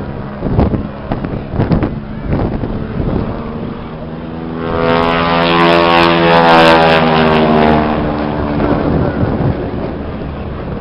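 Engine of a propeller-driven aerobatic display plane swelling to its loudest about halfway through, its note sliding down in pitch, then fading. Wind buffets the microphone in the first few seconds.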